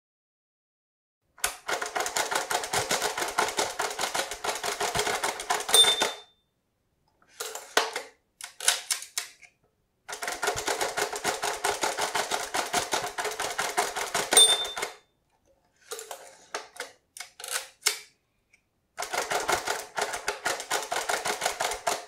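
Manual typewriter typing, starting about a second and a half in. Three fast runs of keystrokes are separated by slower, scattered clacks. A short ding comes near the end of each of the first two runs.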